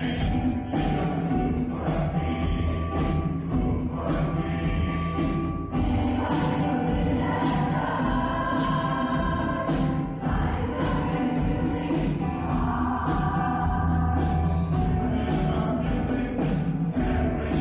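Mixed choir singing a piece with accompaniment, their held chords changing every few seconds, over a steady, fast beat of jingling hand percussion.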